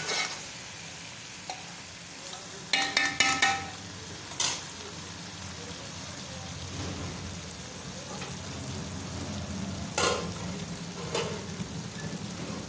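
Karela chicken masala sizzling gently in an aluminium pot, with a metal spoon clinking and scraping against the pot a few times, in a quick cluster about three seconds in and again near ten seconds.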